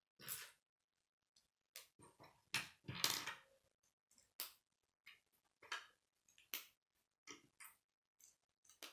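Plastic K'nex rods and connectors clicking and clattering as they are handled and snapped together, in irregular sharp clicks. A longer, louder clatter comes about three seconds in.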